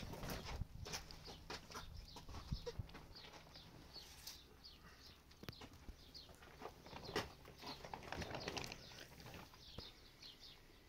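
Faint, scattered bird calls, short high chirps throughout, mixed with light knocks and rustling.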